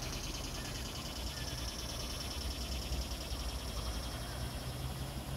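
Muscovy ducklings peeping faintly and briefly over a steady low rumble and a high steady hiss.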